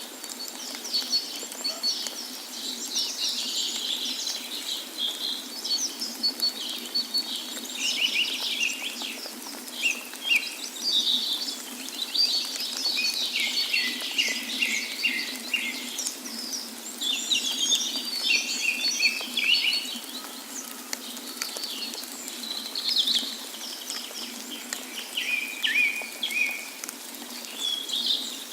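Several songbirds chirping and trilling almost without pause, high-pitched and overlapping, over a steady rush of water.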